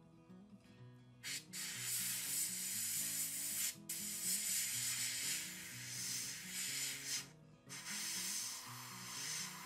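Airbrush spraying paint: a steady hiss of air and paint that starts about a second in, stops briefly near the middle and again for a moment about three-quarters through, then resumes. Soft background music runs underneath.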